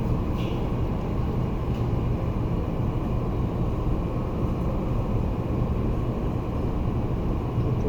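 Steady low hum and rumble of background noise, with a couple of faint light clicks about half a second and two seconds in.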